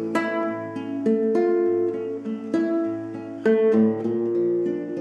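Nylon-string classical guitar played solo: chords plucked one after another, each left to ring, a new one coming roughly every second.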